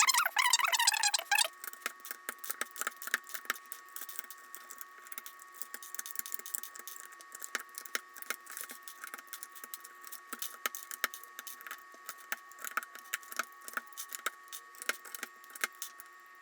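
Plastic keycaps on a mechanical keyboard clicking and clattering as they are worked off and on the switches by hand: many quick, irregular clicks.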